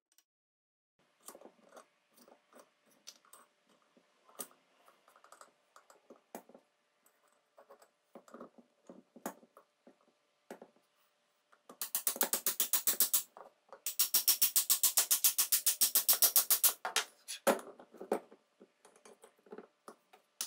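Scattered light clicks and knocks of metal parts being handled, then, from about halfway, several bursts of fast, very even sharp tapping.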